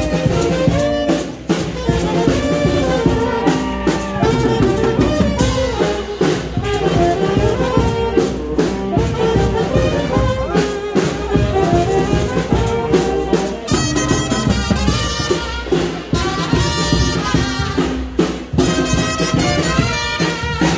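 Brass band music, trumpets and trombones over a steady bass-drum beat. The music changes abruptly to a different passage about fourteen seconds in.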